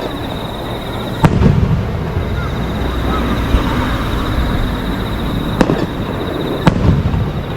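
Aerial fireworks shells bursting: a loud bang about a second in, then two more near the end, each followed by a rumbling echo.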